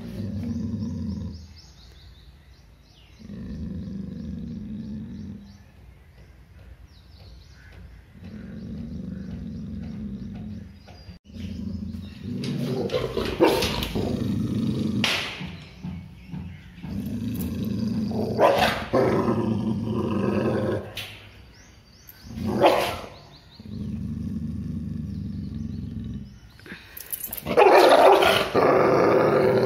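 Labrador retriever growling in long, low growls every few seconds, breaking from about halfway into louder snarling barks, the loudest near the end: the sound of a dog's fear-based aggression.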